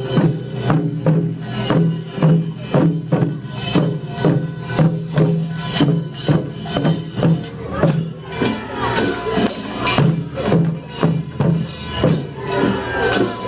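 Korean pungmul farmers' band playing: small gongs and drums struck together in a steady, fast rhythm, the gongs' metallic clang ringing over the drum beats.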